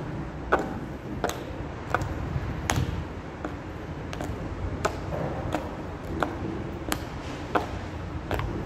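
Stiletto heels worn down to their metal nails clicking sharply on paving stones at a steady walking pace, about three steps every two seconds, over a low background rumble.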